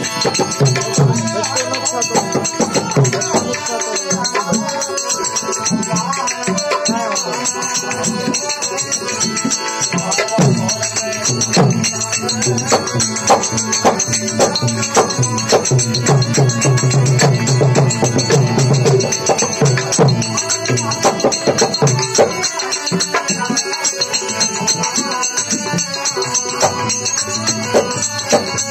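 Live Indian folk music: a man sings while playing a hand-pumped harmonium, accompanied by a tabla pair struck by hand.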